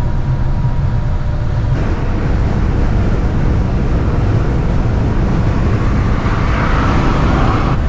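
Mercedes-Benz Actros truck at motorway speed, a steady low drone of engine and tyres with a faint whine. About two seconds in, the sound changes to a broader rushing of wind and road noise.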